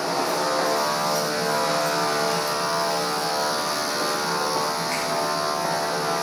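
Subway train's electric motors and equipment running in the station, a loud, steady drone made of many pitched tones over a rushing noise.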